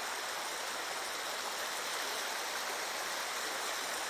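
Shallow creek water running steadily over stones.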